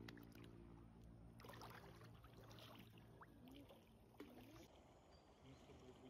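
Faint, steady hum of a boat motor, fading out about two seconds in, followed by a few seconds of faint, noisy sound.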